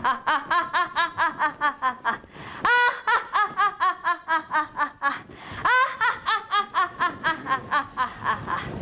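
A woman voicing the Golden Bat's hero laugh, a long rapid "ha-ha-ha" of about five syllables a second. It comes in three runs, and the second and third each open with a high drawn-out cry.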